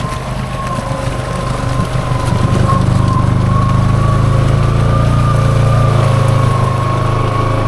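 Honda Foreman ATV engine running steadily, getting louder about two seconds in, with a thin steady high whine over the engine note.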